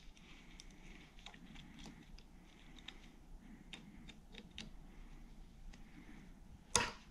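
Faint, scattered small metal clicks of pliers and a steel retaining clip working against a U-joint bearing cap in a driveshaft yoke, with one louder click near the end.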